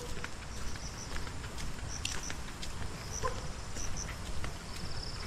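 Outdoor ambience of small animals calling: several high, rapidly pulsed trills and a few short chirps over a low background rumble.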